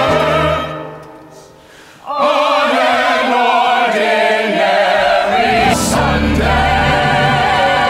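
Musical-theatre soundtrack: a choir singing long held chords with vibrato. The sound fades away about a second in, and the full choir comes back in just after two seconds.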